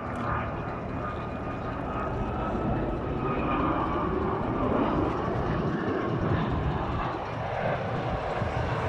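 Jet engines of a twin-engine wide-body airliner on final approach with its landing gear down, passing low: a steady rushing noise with a faint whine, loudest about halfway through and easing off near the end.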